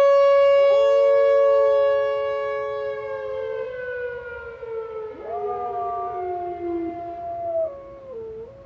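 Outdoor tornado siren sounding a steady loud tone that starts to wind down after about two seconds, sinking slowly in pitch. A dog howls along with it twice: one long howl starting under a second in, and another from about five seconds in.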